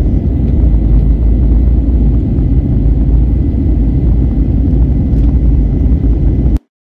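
Airbus A321neo's jet engines heard from inside the cabin in flight: a loud, steady low rumble with a faint high whine, cutting off suddenly near the end.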